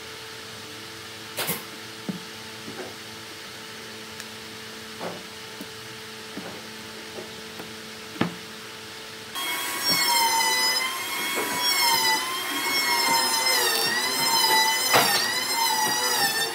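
A few knocks as wooden slab pieces are set down on a plastic-covered board, over a steady low hum. About nine seconds in, a loud high-pitched power-tool motor whine cuts in, its pitch wavering.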